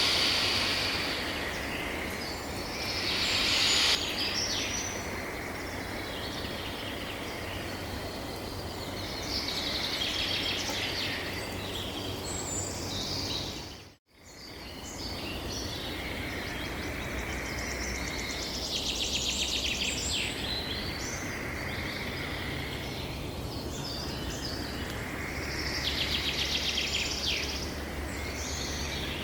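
Birds chirping and trilling over steady outdoor background noise, with a brief dropout about halfway through.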